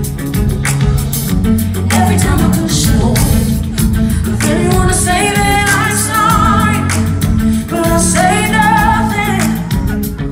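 Live pop band playing, with drums and heavy bass under a woman's lead vocal that holds long, wavering notes twice in the second half.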